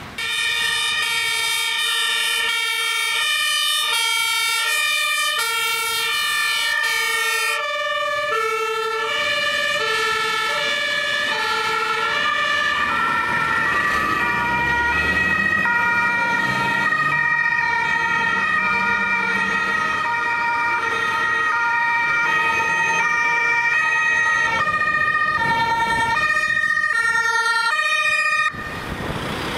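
German emergency-vehicle two-tone sirens (Martinshorn) sounding their alternating high-low notes. More than one siren overlaps out of step, with a vehicle engine rumbling by about halfway through. The sound cuts off suddenly near the end.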